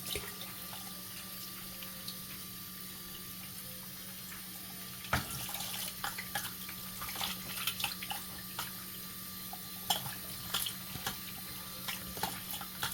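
Kitchen tap running into a sink as fish is rinsed and cleaned, a steady hiss of water. Short knocks and clinks of handling come in from about five seconds in, over a faint steady hum.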